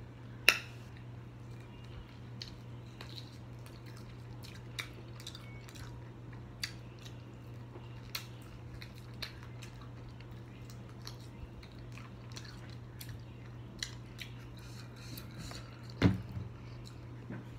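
Close-up mouth sounds of eating a hot chicken wing: soft chewing with scattered small clicks and lip smacks, over a steady low hum. A sharp click comes about half a second in and a louder knock near the end.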